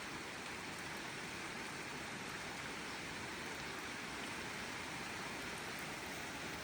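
Steady rainfall: an even, unbroken hiss of rain falling.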